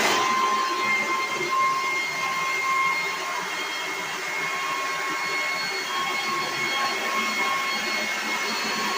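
Black & Decker electric leaf blower running steadily at full speed: a high motor whine over a loud rush of air.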